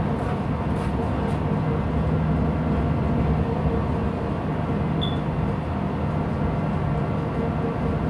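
Steady low drone of a ship's machinery heard on deck, with a wide rumble of wind on the microphone.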